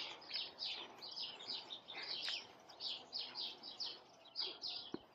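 Small birds chirping in a quick run of short, high chirps, about four a second, with a brief pause about four seconds in.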